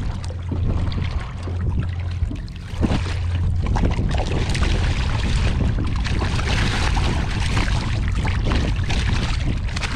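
Water splashing and sloshing at the side of a boat as a hooked gafftopsail catfish thrashes at the surface and is lifted out, over a steady low wind rumble on the microphone. The splashing grows busier from about three seconds in.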